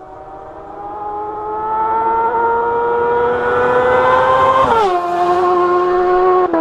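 2011 Suzuki GSX-R750's inline-four engine through a full Akrapovic exhaust, accelerating with rising pitch and growing louder. About five seconds in, a gear change drops the pitch sharply, and the engine then runs at a steady pitch.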